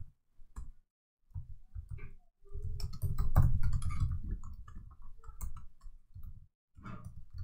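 Typing on a computer keyboard: irregular clusters of keystroke clicks with short pauses between them.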